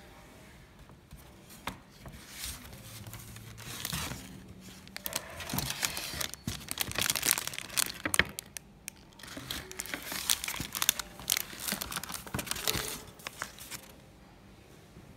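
A paper shopping bag and a clear plastic bag crinkling and rustling in irregular bursts as they are handled and unpacked. The sound starts about four seconds in, comes in two busy spells, and dies away near the end.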